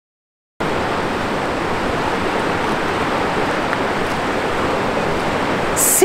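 Waterfall: a steady, even rush of falling water that starts suddenly after a brief silence.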